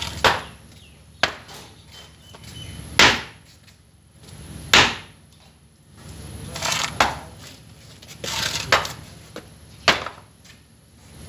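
Hard knocks and clunks, about seven spread over several seconds, with some scraping between them, as a removed brake caliper is handled and worked on. The two loudest come about three and five seconds in.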